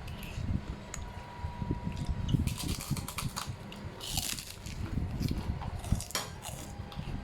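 Close-up eating sounds: chewing, with a few short sharp clicks and clinks like a spoon on a plate about two to four seconds in and again near six seconds.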